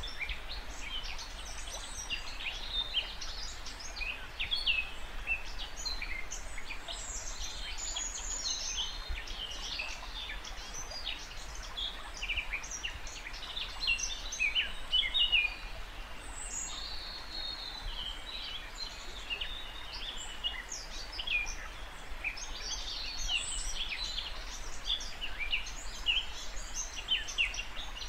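Several songbirds singing at once, a dense overlapping chorus of short high chirps and trills that never lets up, over a faint steady low hum.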